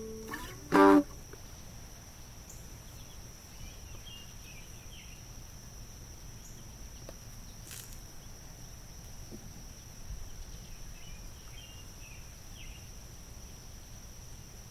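Quiet outdoor background with a steady high-pitched hum and faint bird chirps now and then. A last plucked-guitar chord cuts off about a second in.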